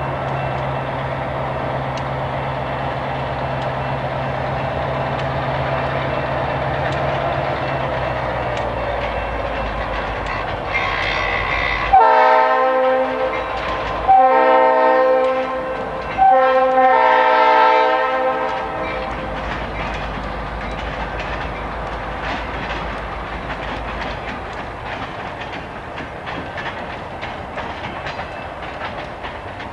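Diesel freight locomotive running as it switches cars on a siding, then sounding its air horn three times in a row, each blast about two seconds long. After the horn the engine sound slowly fades as the train moves off.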